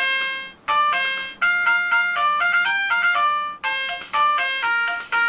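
VTech toy elephant playing an electronic melody through its speaker: a quick run of clean, beeping notes like a ringtone, with a couple of brief pauses between phrases.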